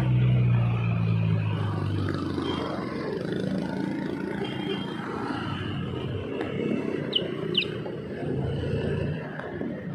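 City street traffic heard from a bicycle. A nearby vehicle engine hums loudly for the first couple of seconds, then fades into a steady hum of traffic. Two short, high squeaks come about seven seconds in.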